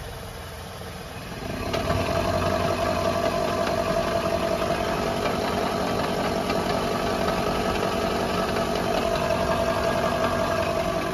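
Car engine idling in third gear, turning a raised front wheel. About a second and a half in the clutch is let out and the sound grows louder into a steady hum with a held drone. The drone is the front wheel hub bearing, worn after about 30,000 km: the owner suspects water driven into it by a pressure washer.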